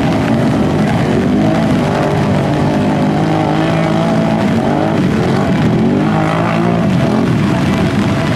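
Several ATV engines running and revving as they drive through deep mud, their pitch rising and falling and overlapping.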